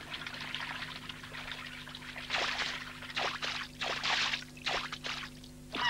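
Cartoon water-splash sound effects: a duckling splashing in a pond, a run of five or six quick splashes starting about two seconds in, after a faint trickle of water. A low steady hum runs underneath.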